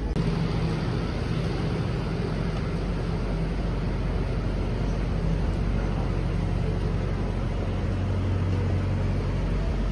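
Steady street traffic noise: the low, even hum of nearby vehicle engines running, over a haze of road noise.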